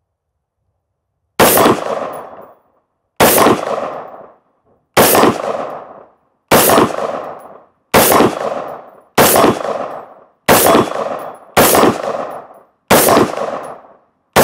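Daniel Defense Mk18 pistol, a short-barrelled 5.56 mm AR-15, firing slowly in semi-auto: nine shots about one and a half seconds apart, starting about a second and a half in, each followed by a ringing echo. A tenth shot comes right at the end.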